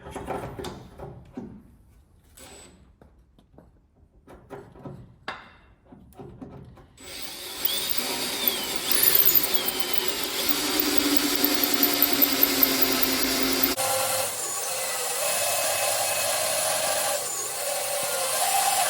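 A few knocks and handling noises, then from about seven seconds in a Makita power drill runs steadily, its bit cutting into a broken, seized bolt, with brief squeals from the bit on the metal.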